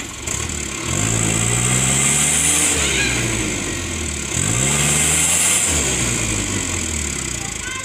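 Diesel engine of a light dump truck revving hard twice, each time climbing in pitch and then dropping back, as the truck tries to pull out with its rear wheels sunk in loose soil.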